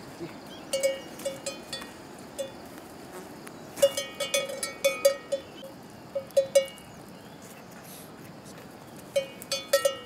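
A cattle bell clinking irregularly in short runs of strikes as the animal moves. The busiest runs come about four seconds in and again near the end.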